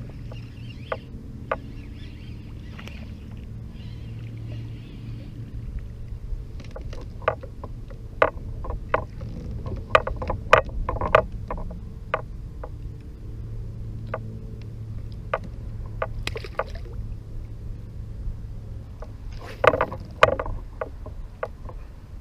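Handling noise aboard a fishing kayak: irregular sharp knocks and clicks of gear, bunched about ten seconds in and again near the end, over a low steady rumble.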